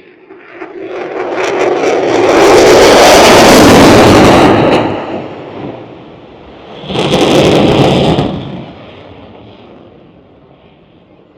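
An aircraft passing low overhead at an air show: its engine noise swells over about two seconds, stays loud for a couple of seconds, then fades. A second, shorter loud burst of noise follows about seven seconds in.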